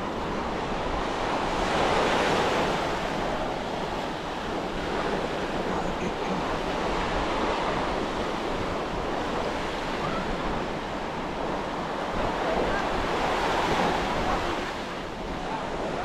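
Ocean surf breaking and washing up the beach, swelling louder twice, about two seconds in and again near the end, with wind rumbling on the microphone.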